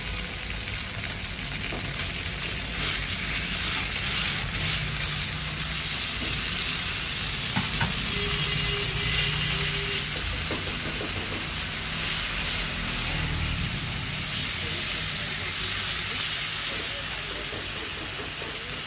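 A corn and bell pepper mixture sizzling as it fries in a non-stick pan, with a silicone spatula scraping and stirring it across the pan. The sizzle is steady throughout, with a single light click about halfway through.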